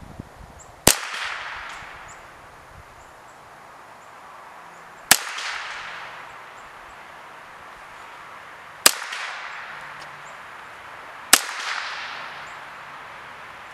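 Four single shots from a Ruger 10/22 .22 rimfire rifle, spaced a few seconds apart. Each is a sharp crack followed by a short echo that fades over about a second.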